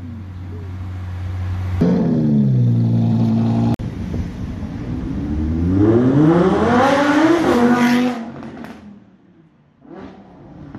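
Lamborghini Aventador SVJ's V12 idling, then a sudden sharp rev about two seconds in that falls back toward idle. After that, a car engine accelerates hard, its pitch climbing for about three seconds, then a gear change, and the sound fades away into the distance.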